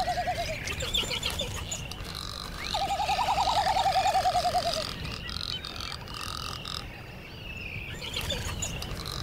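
Male frigatebird with its red throat pouch inflated giving its courtship display call, a rapid warbling trill. One trill trails off at the start and a second runs for about two seconds from about three seconds in, with fainter higher-pitched calls behind it.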